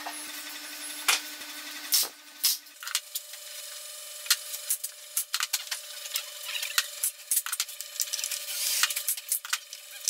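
Hand tool rubbing and scraping on wood, irregular and gritty, with a few sharp knocks about two seconds in.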